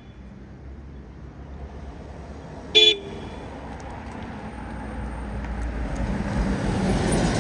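A vehicle horn gives one short toot about three seconds in, over low road rumble. Then a vehicle approaches, its noise growing steadily louder toward the end.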